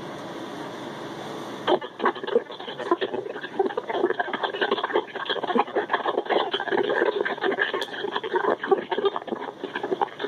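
Scrambled NXDN 4800 digital voice decoded by DSD+ and played back as choppy, garbled, speech-like audio that can't be understood, because the radio's 15-bit voice scrambler is on. A steady hiss comes first, and the garbled voice starts about two seconds in.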